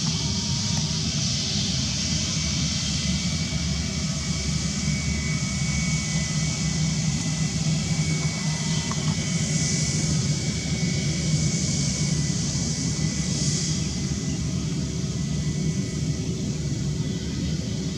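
Twin jet engines of an Airbus A320-family airliner running steadily at low power as it taxis: a deep, even rumble with a thin steady whine above it.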